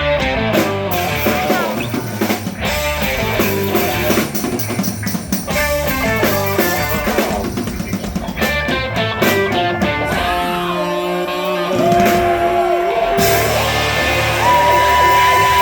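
A live band playing rock music, with electric guitar and a drum kit driving a steady beat, and long held notes near the end.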